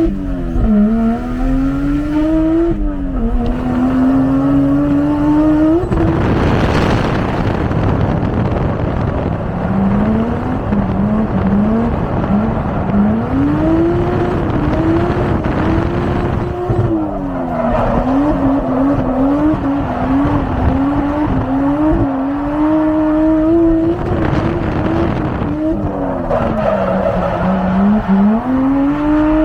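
Toyota 1JZ straight-six engine being driven hard on a track. The revs climb and fall again and again through gear changes and corners. Twice there is a stretch of rushing noise.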